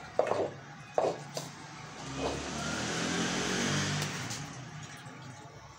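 Hands kneading soft dough in a bowl, with a few soft knocks in the first second and a half. Over it a passing motor vehicle's engine noise swells to a peak about three and a half seconds in, then fades.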